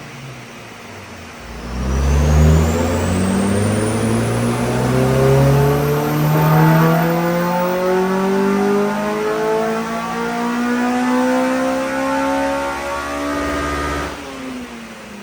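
Honda Civic Type R EP3's K20 four-cylinder engine making a full-throttle dyno pull: after a second or so of low running it comes on load and climbs steadily through the revs for about twelve seconds, with a faint high whine rising with it early on, then the throttle is shut and the revs drop away. This is the baseline run on the car's existing setup, before the remap.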